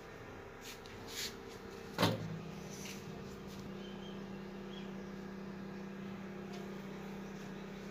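Handling noises on a workbench: a few light clicks, then a single sharp knock about two seconds in, after which a steady low hum sets in and holds.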